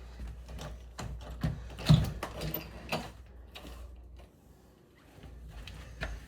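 Handling noise: an irregular run of clicks, knocks and rattles, loudest about two seconds in, with a short lull near the end.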